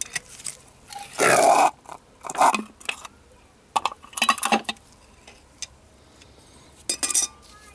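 Metal clanking and scraping as the rotor and crankshaft of a Copeland scroll compressor are drawn up out of the motor stator with pliers. It comes in several short bursts, the loudest about a second in.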